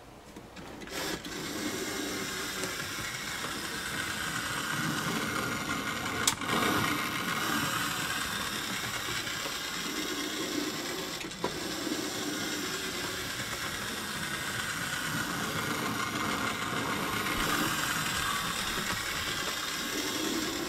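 A 1970s Hornby Silver Seal BR 9F model steam locomotive, driven by a motor in its tender, running on OO track with a steady mechanical whirr and rattle that starts about a second in. A few sharp clicks stand out along the way.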